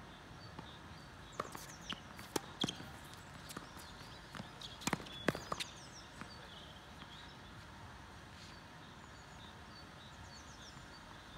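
Tennis rally: a run of sharp racket-on-ball hits and ball bounces over a few seconds, the loudest about five seconds in, then the play stops and only the outdoor background remains.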